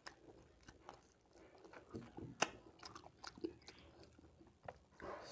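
Close-miked eating sounds: fingers squishing and mixing rice with pork curry gravy on a plate, with chewing and scattered soft clicks. One sharper click comes about two and a half seconds in.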